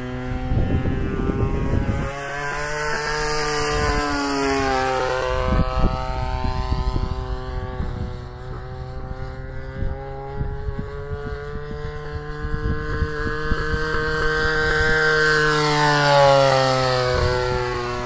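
Single-cylinder two-stroke RCGF 26cc gas engine of a Sea Fury RC model airplane running steadily in flight overhead. Its pitch slides down and back up several times as the plane passes and turns.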